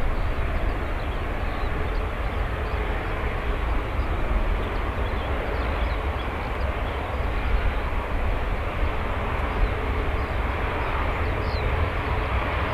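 Jet airliner engines running, a steady low rumble with a faint steady tone.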